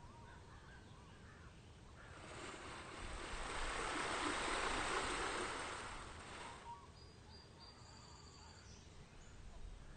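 Splashing fountain water that swells up and fades away over about four seconds, with faint bird chirps around it.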